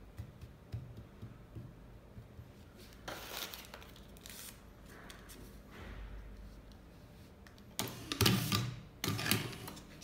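Motorised Prof Matic T3 cigarette-filling machine cycling near the end, in two short bursts of motor hum with scraping as it pushes dust-fine tobacco into a filter tube. Soft rustling of loose tobacco and paper comes before it.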